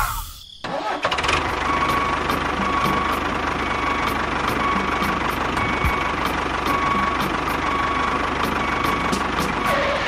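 A tractor engine starts up about a second in, after a short drop-out, then runs steadily at idle.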